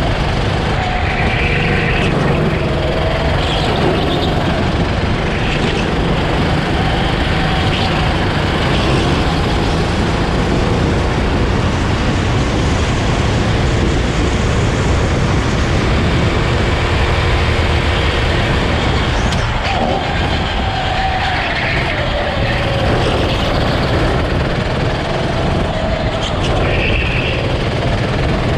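Rental go-kart engine heard onboard at speed, its note climbing as the kart accelerates down the straight and dropping as it slows for the corners, over a steady rush of wind and road noise.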